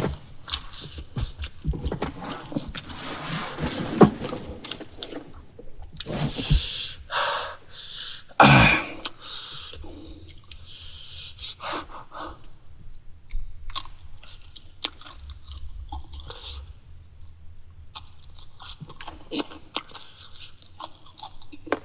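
Close-miked chewing of a person eating spicy instant noodles and meat with rice: many short wet clicks and crunches, with one brief louder sound about eight and a half seconds in.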